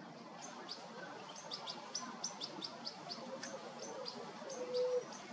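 Juvenile European goldfinch giving rapid, high begging calls, several a second, while the adult feeds it. Near the end a brief steady low hum is the loudest sound.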